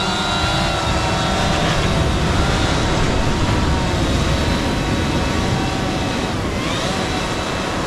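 Quadcopter fishing drone's propellers whining steadily as it climbs away overhead carrying a fishing line, over a low, steady rumble. The whine rises in pitch about six and a half seconds in.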